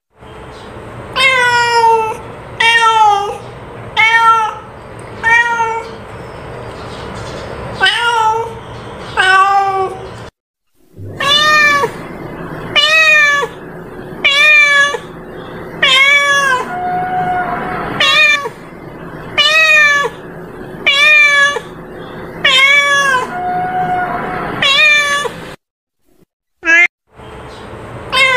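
Domestic cat meowing over and over: short meows about one every second and a half, each rising then falling in pitch, with two brief breaks.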